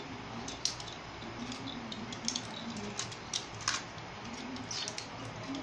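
A handful of short, sharp, irregular clicks and taps of Beyblade spinning tops, plastic with metal discs, being picked up out of a plastic stadium and handled between battles.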